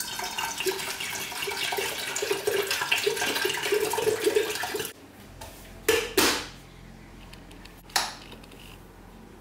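Water pouring into a glass electric kettle for about five seconds, its pitch rising slightly as the kettle fills, then stopping. A couple of sharp knocks follow, and a click near the end as the kettle's lid is pressed shut.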